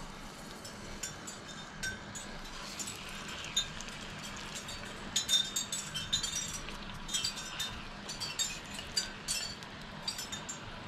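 Raw minced-meat patties sizzling in hot oil in a non-stick frying pan: a steady sizzle scattered with small crackling pops, busier in the second half as more patties go in.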